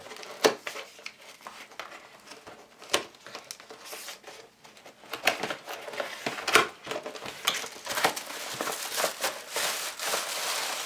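Cardboard box being opened by hand, with scraping, rustling and sharp clicks and taps. From about halfway through it becomes a denser rustle as a laptop cooling pad is slid out of the box.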